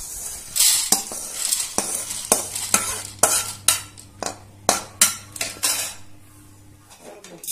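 A perforated steel skimmer scraping and knocking against an aluminium kadai as dry-roasted chana dal is scraped out and rattles onto a steel plate. Irregular metal scrapes and clinks come a few a second over a low steady hum.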